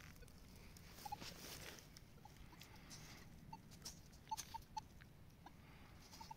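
Faint crackling and small clicks of fingers rubbing soil off a freshly dug coin, with a few short faint pips in the middle and near the end.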